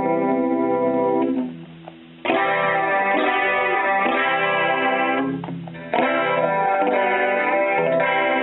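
Electric guitar played through a Roland Jazz Chorus combo amplifier: sustained chords ring out, stop about a second in, and come back for another phrase, with a second short gap near two-thirds of the way through.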